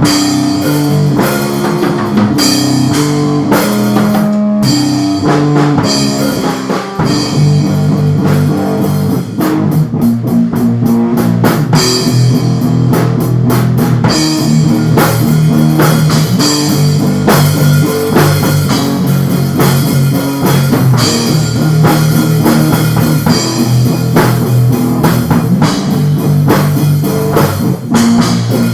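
Instrumental rock music played by a band: guitar, bass guitar and drum kit, the sound filling out about seven seconds in.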